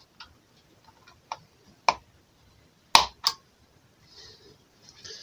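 Clicks of a CR2032 coin cell being pushed into its motherboard battery holder with a screwdriver: a few faint ticks, then two loud clicks about three seconds in, a third of a second apart.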